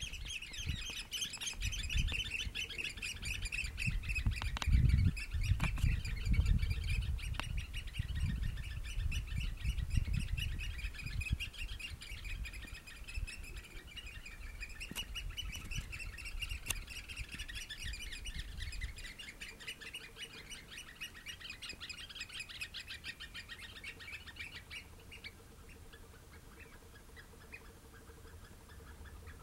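Eurasian oystercatchers giving loud, rapid, continuous piping calls that die away over the last few seconds. A low rumble runs under the first ten seconds or so.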